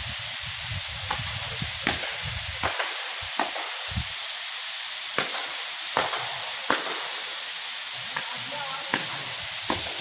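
Steady hiss of rushing water, with a dozen or so sharp knocks at irregular intervals, roughly one a second.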